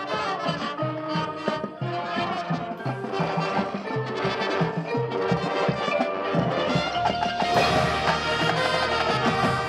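High school marching band playing: brass over a pulsing low rhythm, swelling into a fuller, louder held chord about seven seconds in.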